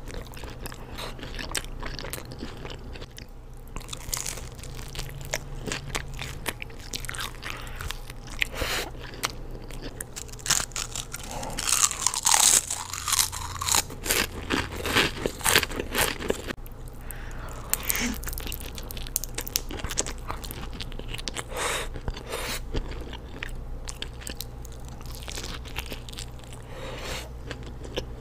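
Close-miked biting and chewing of pizza, with crunching and wet mouth sounds. The crunching is densest and loudest about halfway through.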